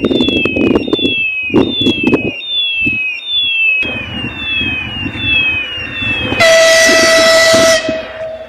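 Train horn sounding once, loud, for about a second and a half near the end. Before it, an electronic warning signal chirps with a falling tone about twice a second over the clatter of the train.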